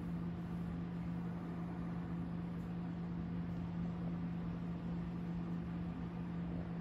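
Steady low machine hum over a constant hiss, with no distinct events.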